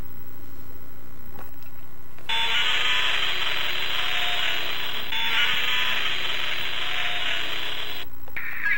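A harsh, screeching Godzilla roar, heard twice in a row starting about two seconds in, each lasting nearly three seconds.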